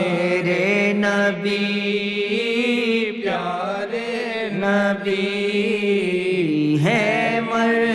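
A man singing an Urdu naat, a devotional hymn in praise of the Prophet, stretching the verse into long, wavering held notes.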